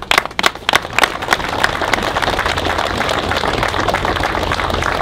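A crowd applauding outdoors: scattered separate claps at first, thickening within a second or two into steady, dense applause. A low steady hum runs underneath.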